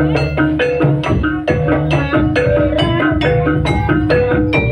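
Javanese jaranan gamelan accompaniment: struck metallophones ringing a short repeating melody over drums at a fast, even beat.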